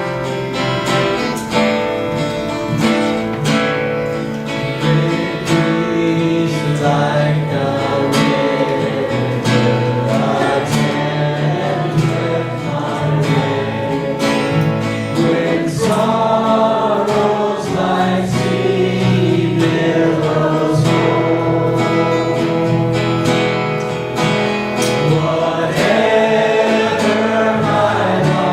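Congregational worship music: a group singing a gospel song with guitar accompaniment and a steady beat.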